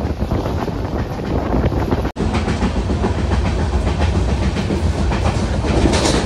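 Mangla Lakshadweep Express passenger train running along the track, wheels clattering over the rails under a steady heavy rumble. There is a brief dropout about two seconds in.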